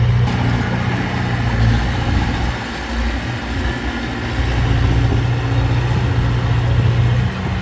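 Large diesel engine of a heavy construction machine running steadily, easing off briefly about three seconds in before picking back up.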